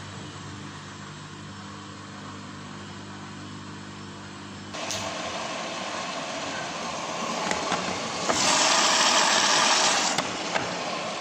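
Samsung WF1600WCV front-loading washing machine running through its 40° wash cycle: a steady low hum, then about five seconds in a sudden hissing rush that gets louder for about two seconds near the end before easing back.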